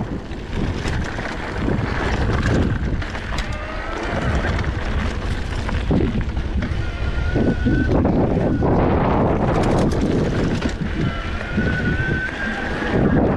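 Wind buffeting the microphone while a mountain bike rolls fast over a dirt singletrack, with the rattle and crunch of the tyres and bike over the rough ground. A thin high whine comes and goes twice.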